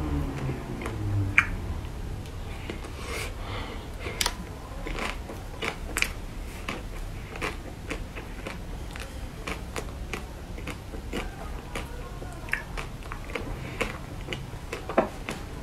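Close-up biting and chewing of a chocolate-coloured dessert bar, with irregular crisp crunches scattered through.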